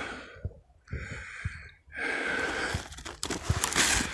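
Snowshoe footsteps crunching in snow, several steps, with denser, louder crunching near the end.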